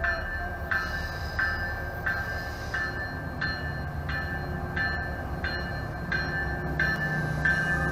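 An MBTA commuter rail train approaching, with a low rumble, while a warning bell rings steadily about three strokes every two seconds.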